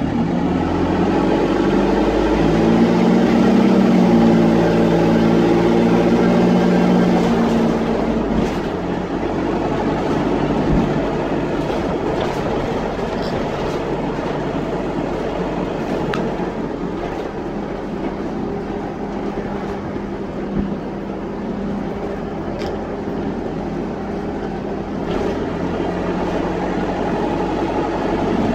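Dennis Dart SLF bus's diesel engine pulling hard under acceleration, with the loud blare of a blown exhaust. The note climbs over the first few seconds, eases off about eight seconds in, and then runs steadier and a little quieter, with an occasional knock or rattle.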